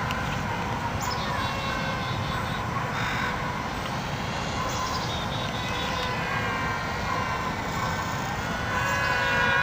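Small electric R/C airplane's motors and propellers whining in flight, the pitch drifting as the plane moves about, over wind noise; it grows louder near the end.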